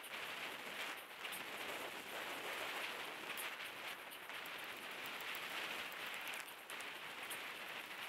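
Steady rushing hiss of a road bike at speed: tyres on asphalt and wind over a helmet-mounted camera, with faint scattered ticks and a couple of brief dips.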